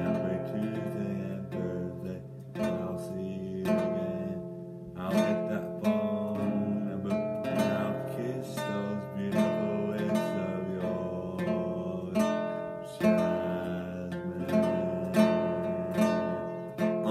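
Acoustic guitar strummed in a steady run of chords.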